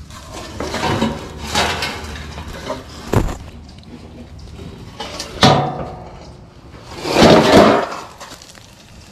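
Debris being flipped over and set down while searching for snakes: a sharp knock about three seconds in, a louder clatter a couple of seconds later, and a longer scraping rustle near the end.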